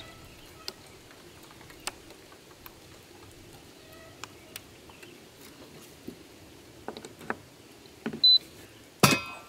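Faint clicks and handling sounds as the buttons of a BLUETTI AC240 portable power station are pressed and a plug is pushed into its AC outlet, ending in a short, louder electronic beep about nine seconds in.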